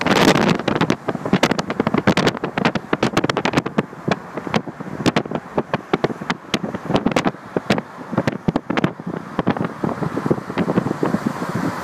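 Wind rushing over the microphone of a moving car, with road noise, full of rapid crackling pops. Loudest in the first second, then a little lower and choppier.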